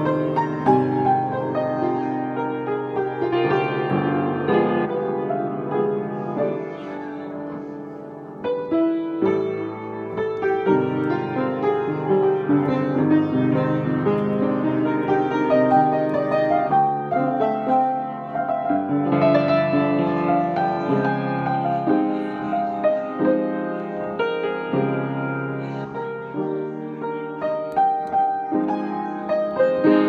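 Background piano music, a calm piece played continuously, softening briefly about eight seconds in.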